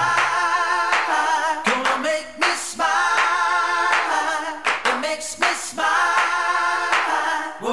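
Theme music: voices singing held, wavering notes over sharp clap-like beats, with little bass.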